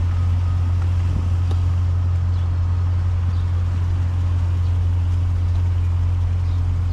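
A vehicle engine idling: a steady, unchanging low hum.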